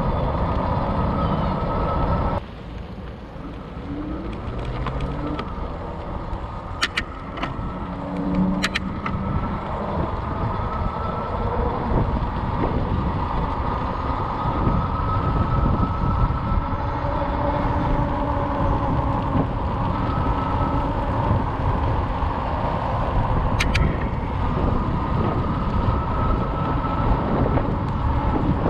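RadRover electric fat-tire bike being ridden on asphalt: wind rushing over the microphone and tyre noise, with the hub motor's steady whine. The level drops suddenly about two seconds in and then builds back up as speed picks up.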